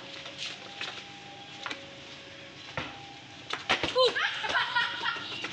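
A person's voice calling out briefly about four seconds in, over a quiet background with a few scattered sharp knocks.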